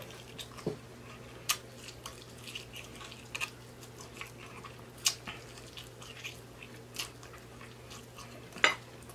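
Close-up chewing and mouth sounds of a man eating barbecued baby back ribs off the bone: irregular wet smacks and small clicks, the strongest near the end, over a low steady hum.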